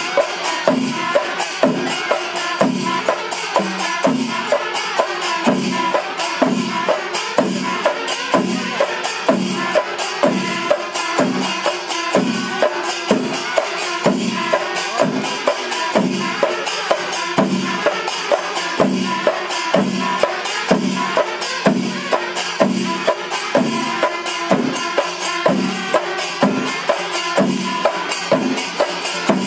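Pandi melam ensemble playing: massed chenda drums strike a heavy, even beat about every three-quarters of a second under a dense, fast clatter of ilathalam cymbals, with kuzhal pipes holding a steady high reed note.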